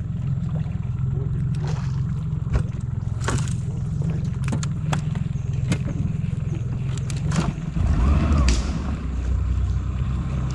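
Spinning rod and reel being cast and reeled in: scattered sharp clicks and taps over a steady low rumble that swells for a moment around eight seconds.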